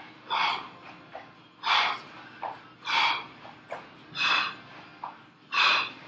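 A man breathing hard from exertion during squat jabs: five forceful exhales at a steady pace, about one every 1.3 seconds, with softer sounds between them.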